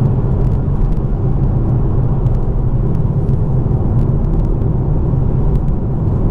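Steady in-cabin engine and road noise from a BMW M2 Competition's twin-turbo straight-six cruising at an even pace in fourth gear on a wet road.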